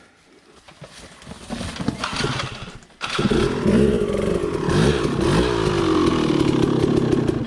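Dirt bike engine on a rough descent, growing louder from about a second in, then suddenly much louder and close from about three seconds, its pitch rising and falling with the throttle.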